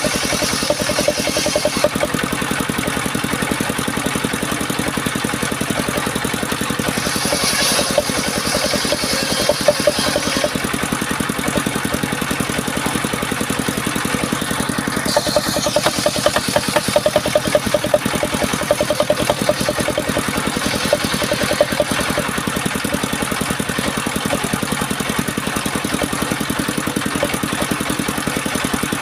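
Engine of a homemade circular sawmill running steadily, with a higher hiss laid over it twice for a few seconds.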